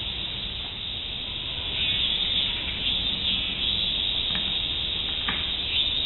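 A chorus of cicadas singing in the trees: a dense, high buzzing that swells about two seconds in and carries on steadily.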